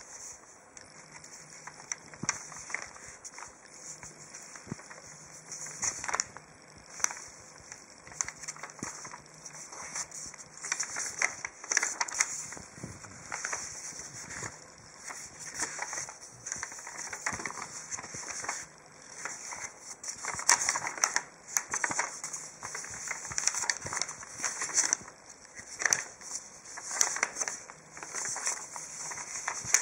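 Paper rustling and crinkling as a folded gliding chart is opened out, its panels flipped and folded back by hand. The rustles come in irregular bursts that grow busier and louder through the second half.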